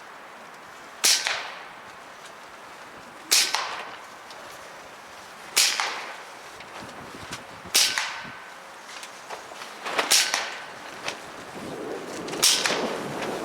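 Hatsan Blitz .22 PCP air rifle fired six times as single shots, about two seconds apart, each a sharp crack with a short tail.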